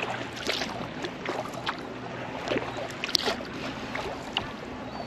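Sea kayak paddling on calm water: irregular drips and small splashes from the paddle blades with each stroke.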